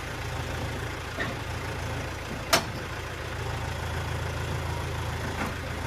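Tractor engine running steadily, with a sharp clank about two and a half seconds in and a couple of fainter knocks, as the tractor is being loaded on.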